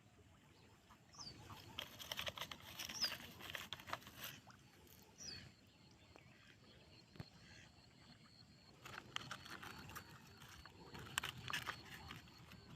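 Rustling and crinkling of plastic litter being picked up and handled, in bursts from about a second in and again near the end, with a few short, faint, high chirps.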